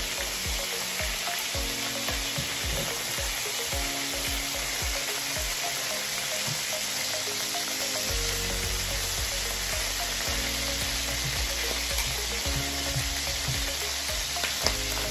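Chicken and pork belly sizzling steadily as they fry in their own rendered fat, with no added oil, in a stainless steel skillet. Metal tongs turn the pieces over halfway through cooking.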